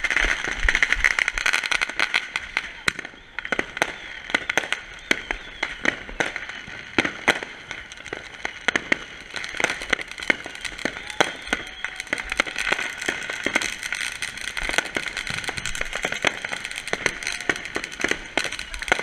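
Ground fountain fireworks spraying sparks with a steady hiss, under a dense run of sharp crackling pops and bangs from fireworks going off all around.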